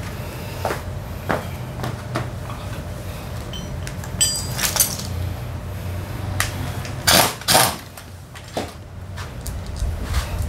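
Metal tools and parts being handled on a workshop floor: scattered clicks and clinks, a ringing metallic clink about four seconds in, and two loud knocks a little after seven seconds, over a steady low hum.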